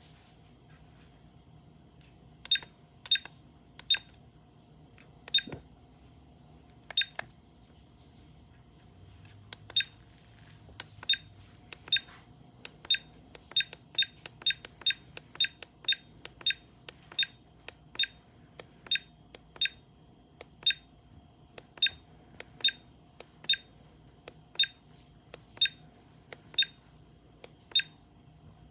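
Short, identical high-pitched electronic beeps, about twenty-eight of them at irregular intervals, like a kids' digital camera beeping at each button press as its menus are clicked through.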